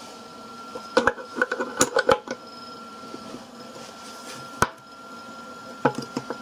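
Irregular metallic clinks and clicks of a wrench working the bolt of a homemade bolt-and-washer press that draws a new inner drum bearing into its seat: a quick cluster about a second in, a single clink in the middle and a few more near the end.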